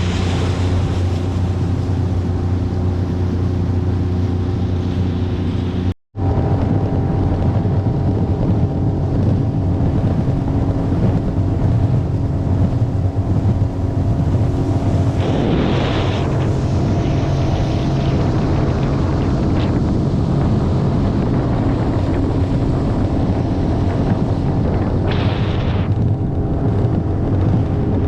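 Fishing boat's motor running steadily under way, with wind noise on the microphone. The sound drops out briefly about six seconds in.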